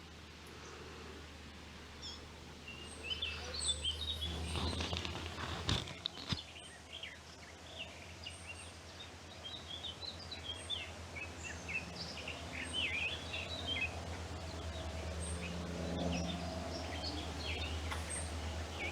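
Small songbirds chirping and singing in quick, varied phrases, over a steady low rumble.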